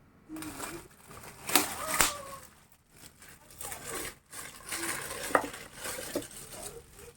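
Kitchen handling sounds: rustling and crinkling with a few sharp clicks and knocks. Faint voices can be heard in the background.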